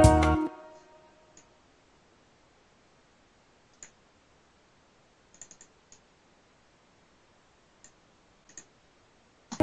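Guitar mix playback stops about half a second in and its last notes ring out, then about ten faint, short computer mouse clicks, singly and in small quick groups, as a volume automation envelope is edited. The guitar music starts again right at the end.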